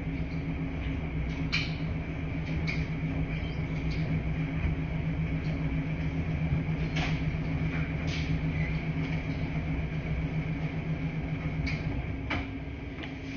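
Laundry-room ambience: a washing machine running with a steady low hum, with a few scattered light clicks and knocks.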